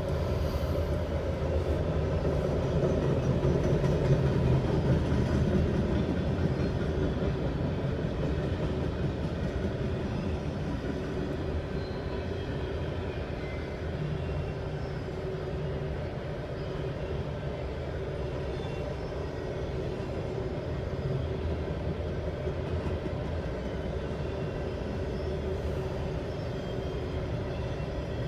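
Norfolk Southern freight train rolling past a grade crossing: a steady rumble of wheels on the rails, a little louder in the first few seconds, heard from inside a car stopped at the gates.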